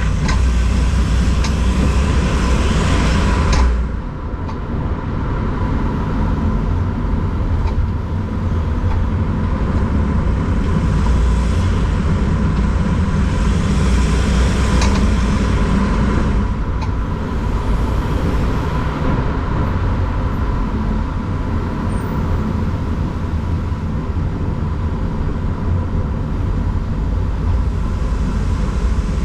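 Volkswagen T6 van running on the road: a steady low rumble with a thin, steady high tone running through it and a few faint clicks. The van has an annoying noise that the owner cannot trace; two service centres found the wheel bearings and suspension fine.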